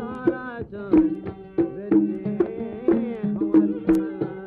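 Instrumental interlude of Kuwaiti sawt music: a sliding, ornamented string melody over a rhythm of sharp hand-drum strikes.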